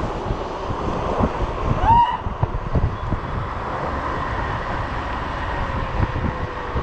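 Wind buffeting the microphone on a moving electric scooter, over a faint steady electric hub-motor whine whose pitch slowly falls in the second half. A brief rising squeal about two seconds in.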